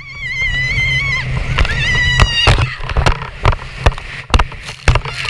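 A woman's high-pitched scream, held and wavering for about a second, then a second shorter shriek about two seconds in, over the steady low hum of a jet ski engine. The last half is a run of sharp thumps and splashes.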